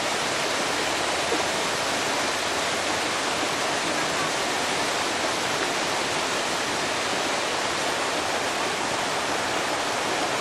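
Shallow creek running over rock slabs: a steady, unbroken rush of water.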